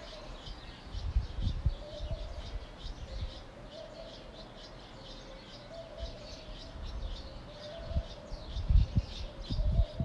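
Many small birds chirping and twittering in a continuous busy chorus. Low rumbling bumps come and go beneath it, strongest near the end.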